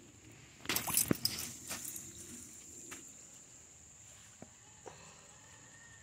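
A short burst of crunching and splashing on wet creek rocks about a second in, followed by a few light knocks, over a steady high whine.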